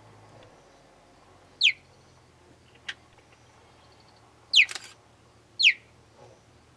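Young cheetah chirruping: three short, high, bird-like cheeps, each falling in pitch. The first comes about one and a half seconds in, the other two close together near the end. It is the call of a cub looking for its absent mother.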